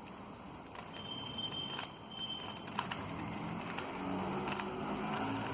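Faint plastic clicks of a Rubik's cube being turned, over steady background noise, with a low hum coming in about four seconds in.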